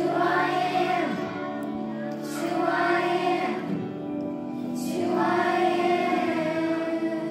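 A children's choir singing a worship song in long held phrases, with a woman's voice among the children's.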